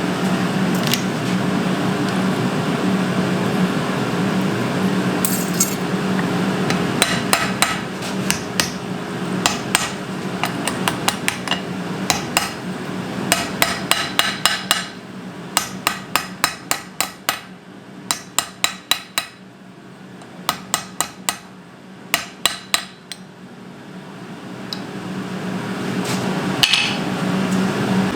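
Blacksmith's hammer striking steel on the anvil in quick runs of ringing blows, over the steady hum of the forge's blower, which drops away partway through and comes back near the end.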